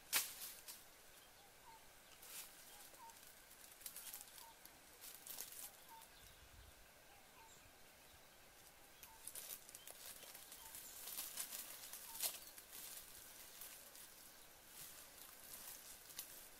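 Scattered light clicks and rustles of bare feet on dry leaves and a woven bamboo mat being handled, the sharpest click at the very start. A faint short bird chirp repeats about once a second through the first two-thirds.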